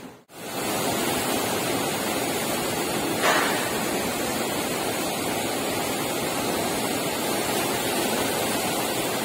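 Ship's wake churning and rushing behind the stern: a steady rushing noise, with a brief louder burst about three seconds in.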